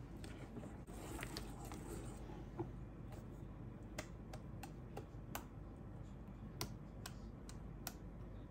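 Wire whisk beating thick waffle batter in a stainless steel bowl: a soft swishing, then a series of light, irregular clicks as the whisk knocks against the bowl.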